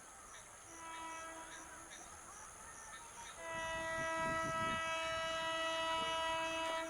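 WAP-4 electric locomotive's air horn sounding as the train approaches at speed: a faint short blast about a second in, then a long, loud steady blast from about three and a half seconds in that breaks off just before the end.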